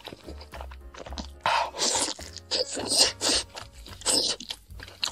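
Three loud, hissing slurps as braised noodles are sucked into the mouth, over quiet background music.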